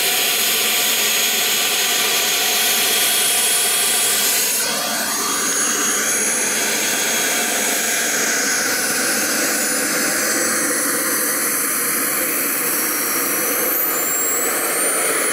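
Small turbine jet engine of an RC jet model running on the ground, a steady whine. About five seconds in, its pitch rises briefly. Through the second half a high whine climbs steadily in pitch as the turbine speeds up.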